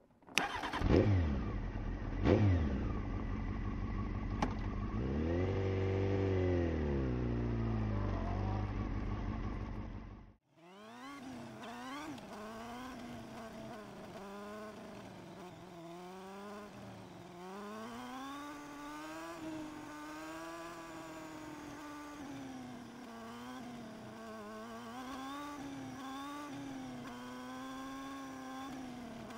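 Honda CBR motorcycle engine starting up and blipped twice, then revved up and down while standing. After a sudden cut about ten seconds in it is heard under way, quieter, its pitch rising and falling with the throttle.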